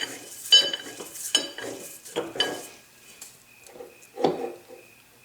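Metal machine parts clinking and clanking as they are handled and fitted: about six irregular knocks, each with a short metallic ring, the loudest about half a second in.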